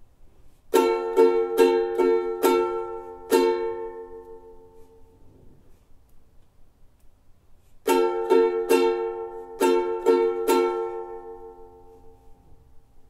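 A ukulele strummed with an F chord: two runs of about six or seven even strums, each run ringing out and fading before the next.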